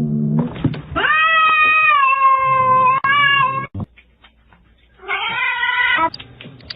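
Domestic cat yowling: a falling cry at the start, then a long drawn-out yowl of nearly three seconds, and after a pause a shorter yowl near the end.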